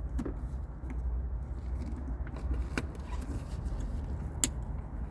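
A few sharp plastic clicks as a pry tool works at the shift knob's retaining clip, over a steady low hum.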